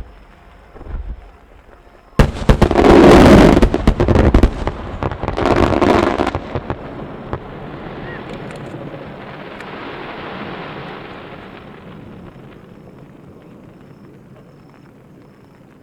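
Fireworks finale: a rapid volley of many shell bursts going off together for about two seconds, a second shorter volley a moment later, then a long wash of sound that swells and slowly fades away.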